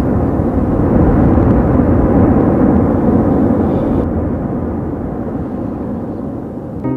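Ash eruption from Mount Bromo's crater: a loud, steady, deep rushing rumble, easing slightly in the second half.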